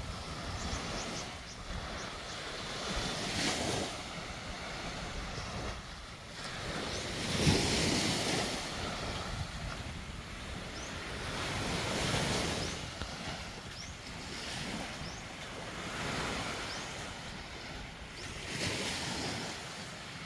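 Small waves breaking on a sandy beach and washing up the shore, swelling and fading every few seconds, with wind on the microphone.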